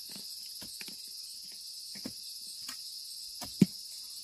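Steady high-pitched chorus of insects, with a few scattered short knocks; the loudest knock comes about three and a half seconds in.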